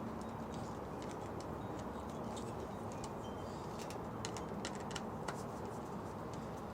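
Small, irregular clicks and ticks of a screwdriver tightening the wire terminal screws on a doorbell's back, over a steady background hiss.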